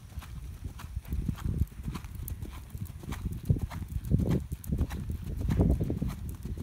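A ridden horse's hooves thudding in soft arena sand at a trot, a steady beat of muffled footfalls.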